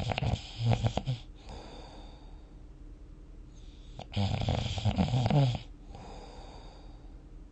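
A person snoring while asleep: two loud snores, one at the start and one about four seconds in, each lasting about a second and a half, with softer breathing sounds in between.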